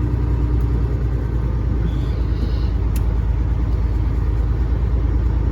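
Cat 3406E inline-six diesel of a Freightliner FLD120 running at low revs: a steady low rumble, with a single light click about three seconds in.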